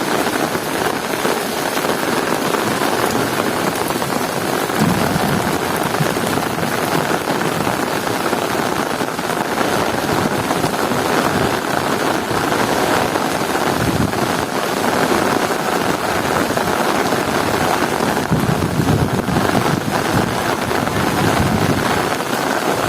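Heavy rain falling steadily in a thunderstorm, a dense continuous hiss, with a few low rumbles coming and going.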